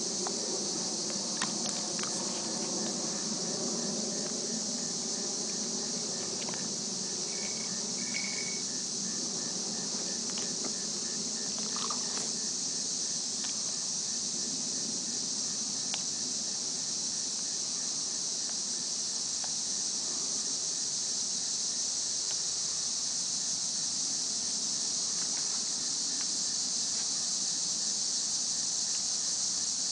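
A steady, high-pitched chorus of crickets and other insects, with a faint chirp repeating at an even pace beneath it.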